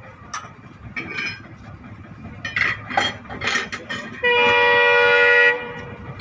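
Locomotive horn of an approaching train sounding one steady blast of about a second and a half, beginning about four seconds in. Before it there are scattered short knocks over a low rumble.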